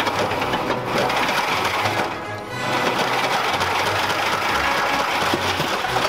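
Washing machine running at full power, its drum pulling in a metal chain that rattles and clatters against it in a fast, dense racket. Background music plays over it.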